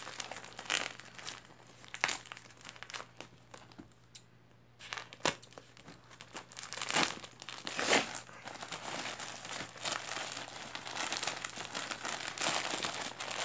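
Brown paper and tape of a mailed parcel being torn open and crumpled by hand: irregular crinkles and rips, with a brief lull about four seconds in and busier handling after. A faint steady low hum runs underneath.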